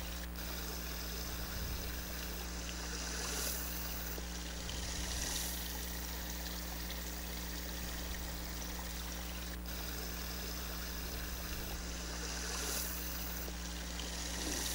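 Small stream of water running steadily over stones.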